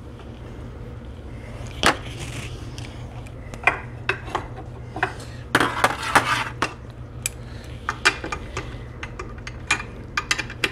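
Small metal parts clicking and clinking as the steel kickstart ramp plate and its loosened bolts are shifted by hand on a Lambretta aluminium chain case cover, with a quick run of rattling clicks about six seconds in.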